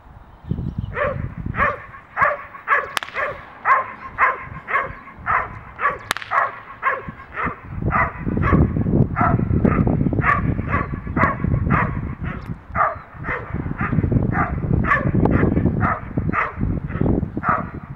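A dog barking over and over, about two barks a second, as it lunges at a helper with a bite sleeve in protection training. A low rumble runs underneath from about eight seconds in.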